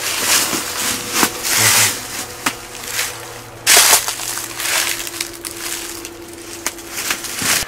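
Footsteps crunching and rustling on dry leaves and debris on wooden cellar steps, in irregular bursts, with the loudest crunch about four seconds in.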